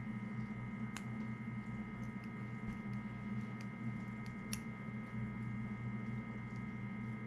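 Split-ring pliers and a small metal split ring clicking faintly twice as the ring is pried open, over a steady electrical hum.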